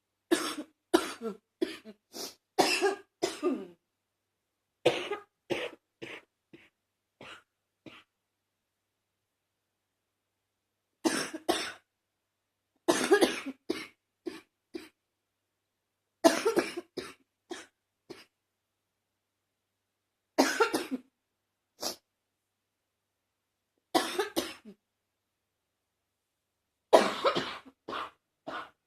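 A person's congested cough, coming in about eight bouts of several quick coughs each, with silent pauses of a second or more between bouts.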